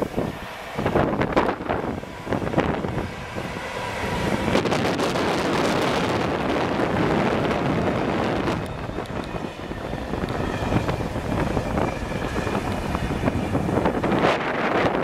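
Vossloh G 1206 diesel locomotive and its flat wagons passing at low speed, engine running and wheels rolling on the rails, with strong wind buffeting the microphone. The first few seconds are gusty and crackling, then the sound settles into a steady, dense rumble from about four seconds in.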